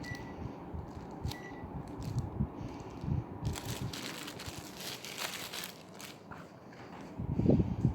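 A Panasonic CS-S10HKP air conditioner's indoor unit beeping briefly twice, at the start and about a second and a half in, as it takes remote commands, over handling knocks and thumps. A few seconds in there is a stretch of crackling hiss, and near the end a cluster of louder thumps.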